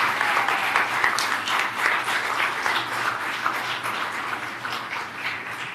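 Audience in a council chamber applauding, the clapping slowly dying away toward the end.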